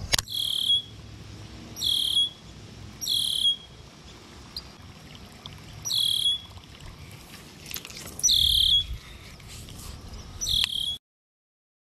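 Six short, high, buzzy animal calls at uneven gaps of one to three seconds, each well above a faint outdoor background.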